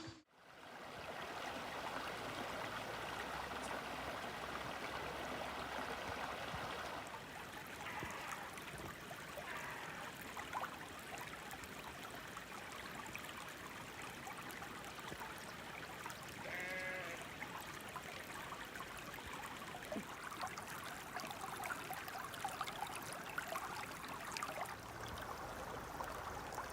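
Small creek running over rocks, a steady trickling rush of water. A brief pitched call sounds once about 17 seconds in.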